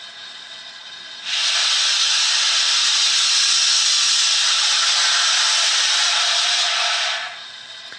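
Steam locomotive cylinder drain cocks hissing, played through a model locomotive's sound decoder speaker (Locoman Sounds Thompson A2 4-6-2 profile on a Doehler & Haass decoder). One steady hiss starts about a second in and cuts off about a second before the end.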